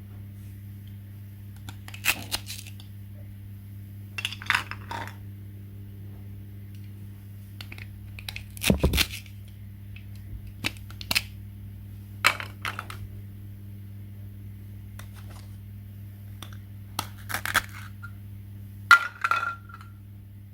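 Scattered clicks and clatters of small hard objects being handled, about eight short groups spread over the stretch, the loudest about nine seconds in and near the end, over a steady low hum.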